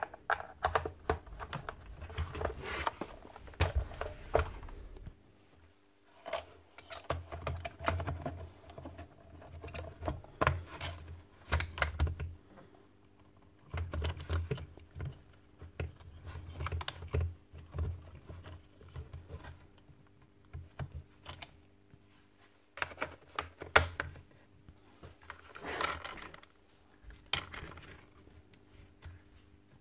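Irregular light clicks and knocks of plastic housing parts and small screws being handled and fitted as a gas staple gun is reassembled.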